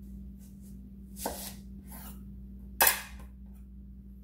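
Shun Hikari 6-inch chef's knife cutting into an onion and striking the cutting board: two sharp knocks about a second and a half apart, the second louder and sharper, each with a brief crunchy hiss.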